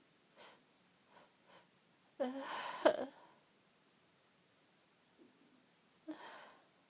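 A woman's sneeze from an allergy sneezing fit: a few quick breaths in, then a voiced 'ah' build-up that breaks into a sharp sneeze a little over two seconds in. Another short, gasping breath comes near the end.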